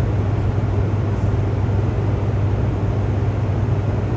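Steady low hum and rumble of Hoover Dam's hydroelectric generators running in the powerhouse generator hall.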